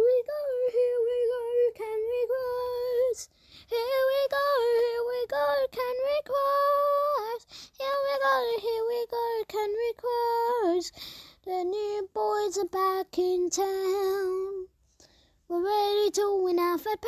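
A single high voice singing a tune with no instruments, in phrases of held and gliding notes broken by short pauses, with a gap of about a second near the end.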